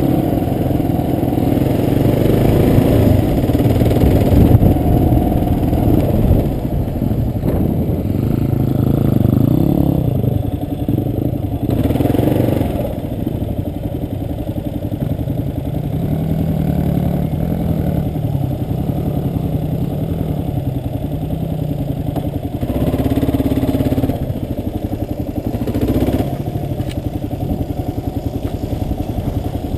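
Kawasaki KLR650's single-cylinder four-stroke engine running on a dirt trail, heard from a camera mounted on the bike, its revs rising and falling. It runs louder for the first ten seconds or so, then settles lower, with two short rises in the second half.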